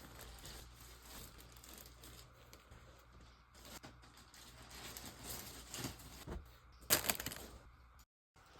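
Plastic packaging crinkling and tearing as clothes are unboxed, in irregular rustles with the loudest about seven seconds in.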